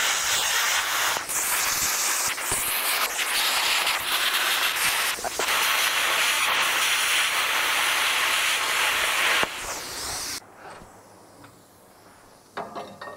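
Plasma cutter cutting steel: a steady, loud hiss with a little crackle for about nine and a half seconds, cutting off suddenly. After that it is much quieter, with a few small knocks near the end.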